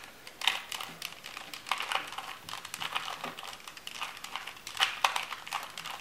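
Plastic layers of a Rubik's 2x2 mini cube being turned quickly by hand: an irregular run of small clicks and clacks as the faces snap round.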